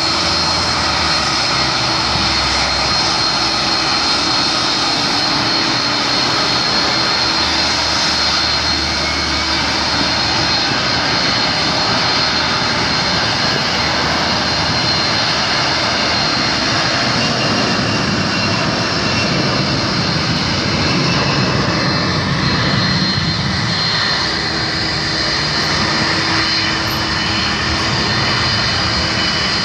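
Boeing 747's four jet engines at taxi power: a steady jet rumble with a high whine over it.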